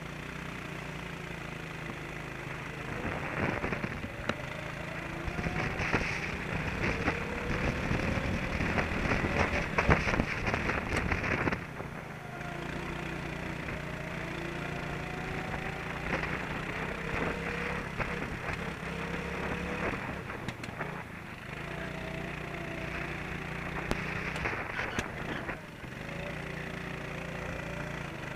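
Racing kart's engine heard from on board under throttle. Its pitch rises along each straight and drops back for the corners several times. Over it there is wind and a rough clattering noise, loudest in the first dozen seconds.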